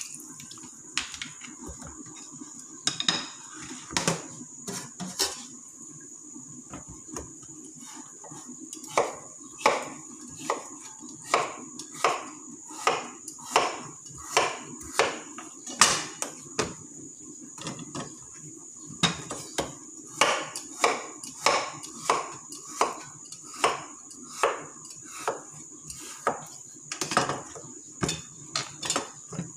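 Sharp knocks, a few scattered at first, then a steady run of about one every 0.7 s with a short break partway, over a steady high-pitched whine.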